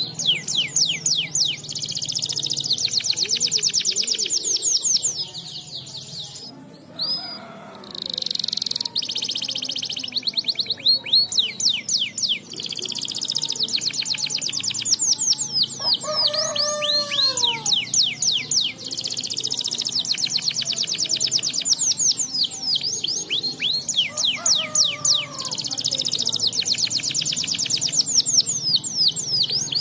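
Domestic canary singing a long song of fast rolling trills and rapid repeated notes, with a short lull about a quarter of the way in.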